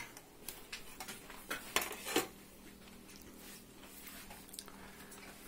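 A few soft clicks and smacks over the first two seconds, then quiet room tone with a faint steady hum.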